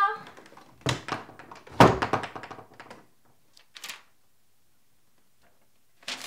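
Two dull thuds against a wooden door about a second apart, the second louder, then a fainter knock a couple of seconds later and quiet; a paper rustle starts right at the end.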